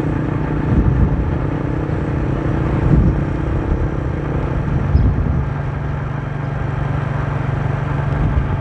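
Motor scooter engine running steadily at cruising speed, with wind and road noise on a handlebar-level microphone. A few brief thumps come about one, three and five seconds in.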